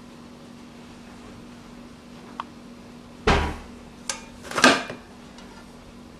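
Large aluminium pot being handled and set down: a light click, then a heavy thud about three seconds in, another click and a second, louder clatter about a second later. A low hum runs underneath.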